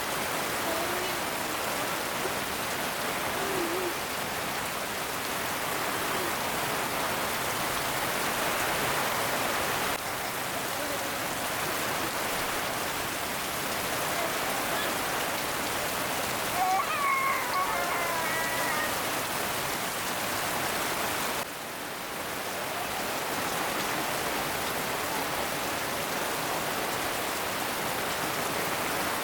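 Steady rain falling, an even hiss throughout, with a few brief high chirping calls about halfway through.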